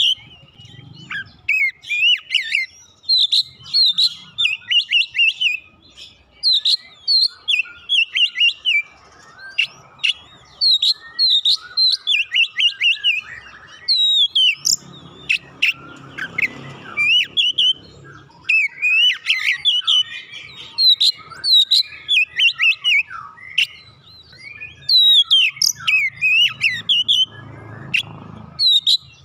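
Oriental magpie-robin (kacer) in full song: a long run of loud, varied whistled phrases and quick chirps, broken by brief pauses.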